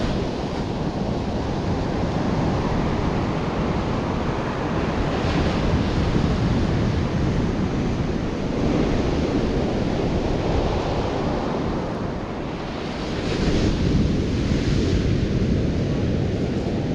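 Ocean surf breaking and washing up a beach, a steady rushing noise that swells now and then as waves break, with wind rumbling on the microphone.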